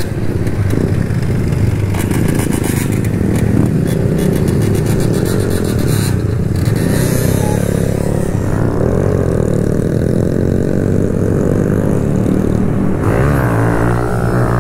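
Kawasaki Z125's single-cylinder engine through an aftermarket full exhaust, ridden with the revs rising and falling as the throttle opens and closes. About thirteen seconds in the engine revs up sharply as the bike is lifted into a wheelie.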